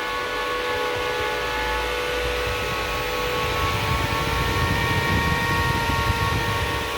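Antminer S9 bitcoin miner's high-speed cooling fans running, a steady loud whine made of several held tones over a rushing rumble.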